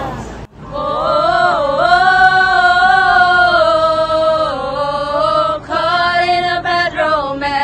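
A woman's voice singing long, drawn-out notes that waver in pitch. It breaks off briefly about half a second in and turns to shorter, choppier notes near the end.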